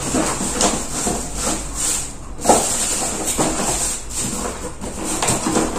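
Rustling and crinkling of packaging being handled, with a few sharper crackles at irregular moments.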